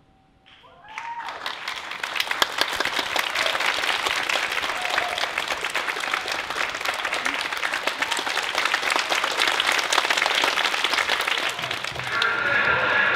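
Audience applauding: a dense, steady patter of many hands clapping that swells in about a second in and carries on for about ten seconds. Near the end a steady droning sound with sustained tones comes in.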